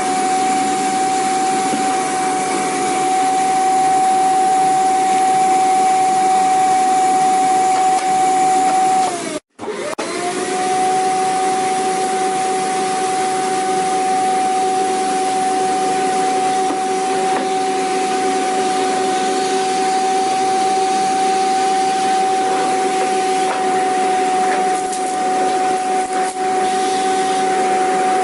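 Vacuum cleaner motor running steadily, a rushing hiss with a high, even whine. About nine seconds in, the whine sags and the sound cuts out for a split second, then comes straight back with the whine rising to its former pitch.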